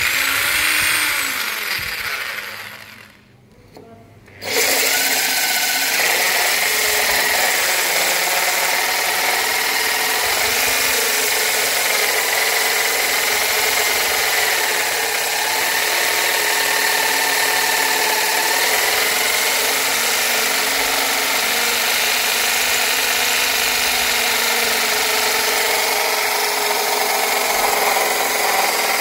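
Electric drill with a core bit grinding a hole into granite. The motor winds down about two seconds in and goes briefly quiet, then starts again and grinds steadily with a wavering whine.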